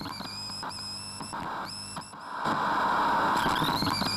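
Eerie horror sound effect: thin, high whistling tones that repeatedly dip and swoop in pitch over a low steady hum, with a hissing noise that swells and grows louder about halfway through.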